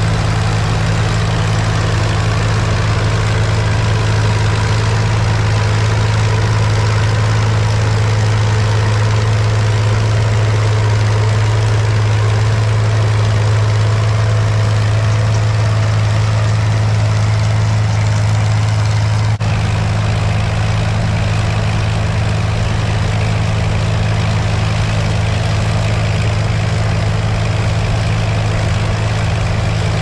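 A heavy engine running steadily at a constant speed, a deep unchanging hum for the whole stretch.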